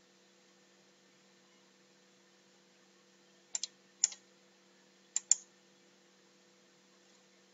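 About five sharp computer mouse clicks in two short groups, starting about three and a half seconds in, over a faint steady hum.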